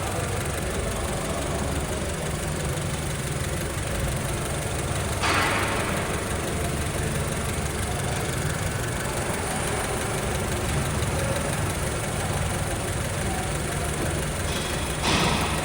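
Honda Civic engine idling steadily, running with a newly fitted water pump after the old, noisy pump was replaced. Two brief louder rushes of noise break in, about five seconds in and near the end.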